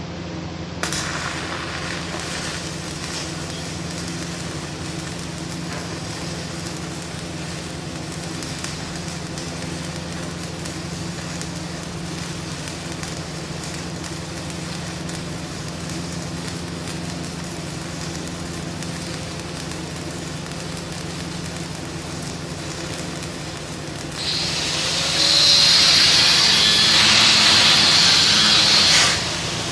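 Pipe-welding arc crackling over a steady machine hum. For about five seconds near the end the arc's hiss is much louder, then it cuts off suddenly.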